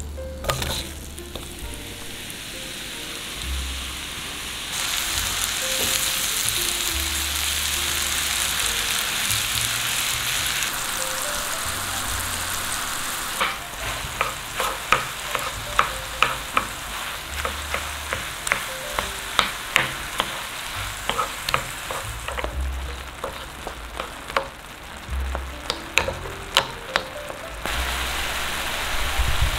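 Banana pieces sizzling in foaming melted butter in a nonstick frying pan. From about halfway through, a wooden spoon stirs and mashes them, knocking sharply against the pan roughly once or twice a second.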